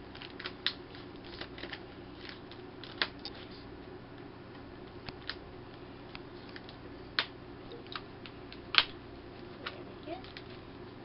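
Scattered sharp clicks and taps from handling a taped-up cardboard box, the loudest about three-quarters of the way through, over a steady low hum.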